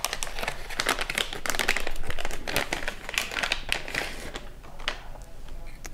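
Plastic anti-static bag crinkling as a circuit board is handled and taken out of it, a rapid run of small crackles that is busiest in the first three seconds and thins out toward the end.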